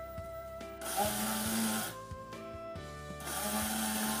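Small electric grinder run in two short pulses of about a second each, grinding rolled oats into flour. Background music plays underneath.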